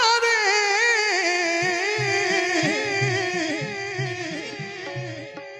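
Rajasthani devotional bhajan performed live. A man's voice holds out the end of a sung line in a long wavering note that slowly fades, over harmonium and keyboard. A hand drum comes in with a steady beat about one and a half seconds in.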